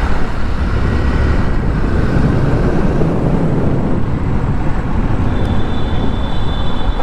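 Hero Honda Karizma's 223 cc single-cylinder engine running steadily at road speed, heard from the rider's seat along with wind and road noise. A thin high tone joins near the end.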